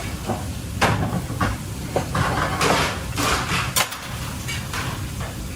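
Kitchen cooking sounds: utensils, pans and dishes knocking and clattering several times over a hiss of frying.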